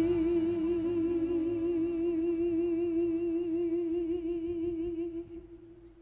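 Soprano voice holding one long note with even vibrato over soft orchestral accompaniment, fading away about five seconds in.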